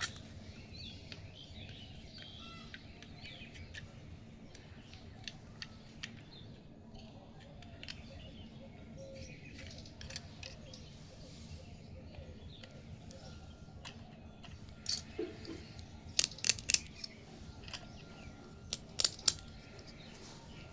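Small plastic toy pieces being handled, with scattered light clicks and a cluster of sharp plastic taps and clicks in the last few seconds.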